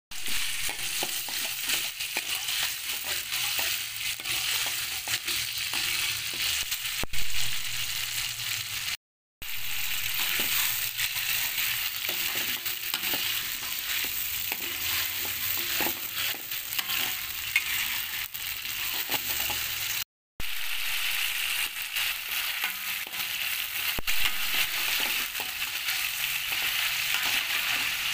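Blended dried-chilli, onion and garlic paste sizzling in hot oil in a steel wok, with a metal spatula stirring and scraping against the pan: the chilli paste being sautéed until it cooks down. The sound cuts to silence briefly twice.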